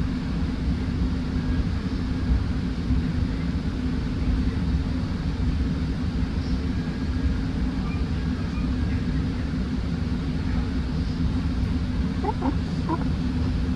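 Steady rumble of a moving Metrolink passenger train heard from on board, with a few faint short squeaks near the end.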